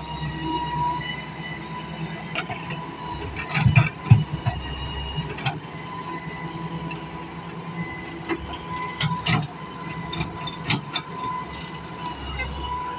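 Excavator engine running steadily, with scattered knocks and clanks; the loudest are a pair of heavy thumps about four seconds in.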